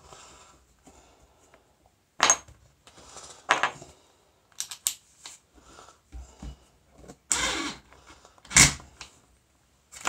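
Clicks and knocks of hand tools and wire connectors handled while a ground lead is fastened to a furnace blower motor's terminals: a handful of sharp knocks with quiet gaps between, the loudest near the end.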